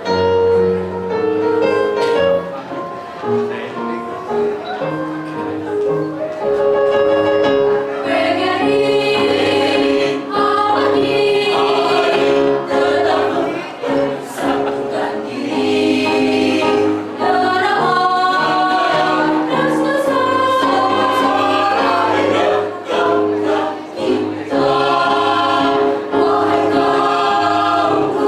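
A teachers' choir singing together, with many long held notes over a steady musical accompaniment.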